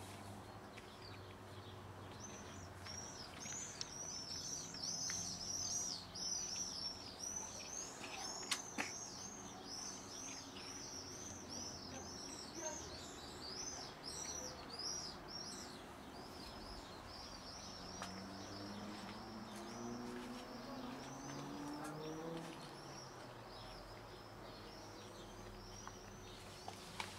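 Small birds chirping: a dense run of quick, high chirps that starts a few seconds in and thins out near the end.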